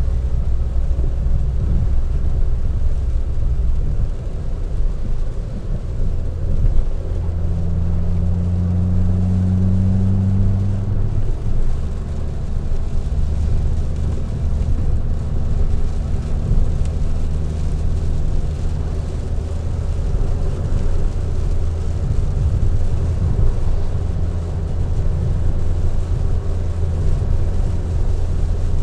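Fiat 500 Abarth's turbocharged 1.4-litre four-cylinder engine and exhaust droning inside the cabin while driving, over steady road noise. The engine note steps up about a quarter of the way in and drops back a few seconds later.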